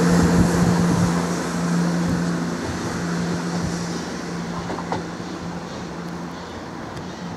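Class 168 diesel multiple unit pulling away, the hum of its underfloor diesel engines and the rush of its wheels fading steadily as it recedes.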